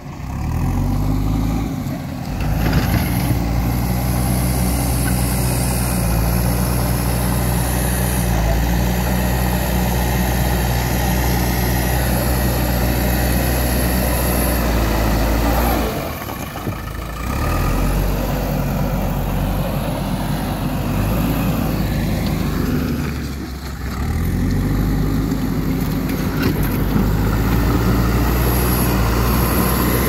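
JCB ecoXcellence backhoe loader's diesel engine running steadily under load while the front loader works, its note dropping briefly twice, about halfway through and again a few seconds later.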